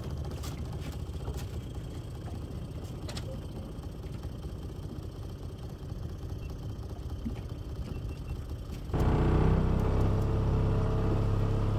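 Steady low rumble with a few light clicks, then about nine seconds in an outboard motor cuts in, running steadily at cruising speed and pushing the aluminium fishing boat along.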